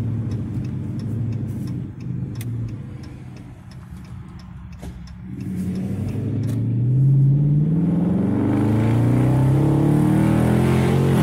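Dodge Charger R/T's 5.7-litre HEMI V8 with its mid-mufflers deleted and resonators kept, heard inside the cabin: steady engine hum that goes quieter for a few seconds, then, from about five seconds in, the car accelerates and the exhaust note climbs in pitch twice, as through two upshifts, getting louder.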